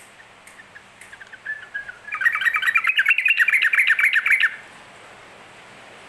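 Yellow-vented bulbul singing. A few soft notes lead into a loud, rapid run of chattering notes from about two seconds in, lasting about two and a half seconds and stopping abruptly.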